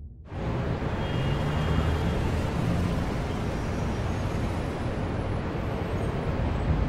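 City street traffic: cars' engines and tyres making a steady noise with a low hum, starting suddenly about a third of a second in.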